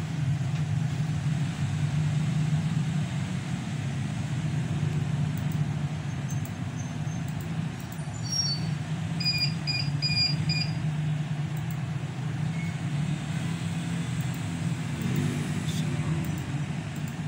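Steady low background hum, with a short run of high-pitched beeps about eight to ten seconds in.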